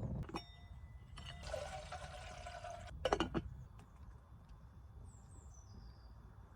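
Water being poured into a pot or kettle for about a second and a half, followed by a short clatter. A bird chirps a few times near the end.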